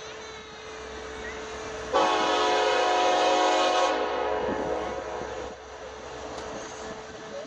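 An SD70MACH locomotive's Nathan K5LLA five-chime air horn sounds one long chord, starting sharply about two seconds in and held for about two seconds, then dying away with an echo.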